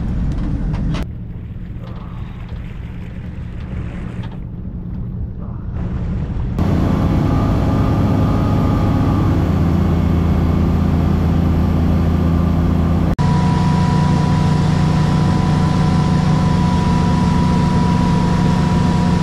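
Motorboat engine running with a steady low drone, quieter at first and then much louder about six seconds in as the boat runs at speed, with wind and water rushing. In the last several seconds a steady higher whine rides on top of the drone.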